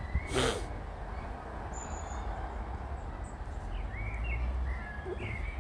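Small birds chirping in short rising-and-falling calls, several of them in the second half, over a steady low rumble; a brief noise sounds just after the start.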